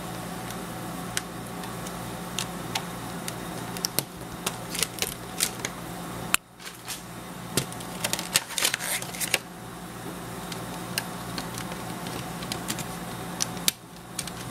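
Hands working a rubbery plastic tablet case: scattered clicks, taps and light knocks, most of them between about four and nine seconds in, over a steady low hum.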